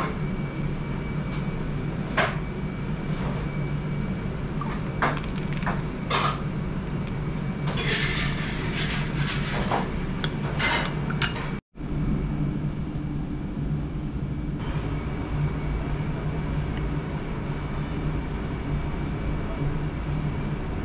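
Light clinks and scrapes of a spoon and bread against a small glass bowl and china saucer, a few seconds apart and busiest about eight to ten seconds in, over a steady low room hum.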